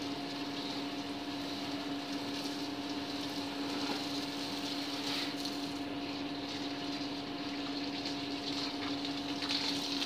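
Steady machine hum holding a low tone and a fainter higher tone over an even hiss, unchanging throughout.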